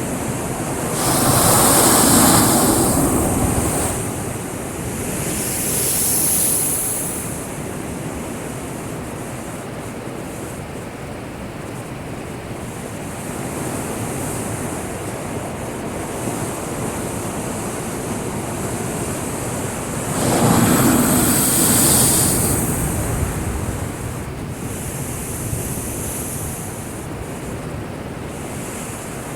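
Heavy typhoon swell breaking against a breakwater: a steady wash of surf, with big crashing surges about a second in and again about twenty seconds in, and a smaller one around six seconds.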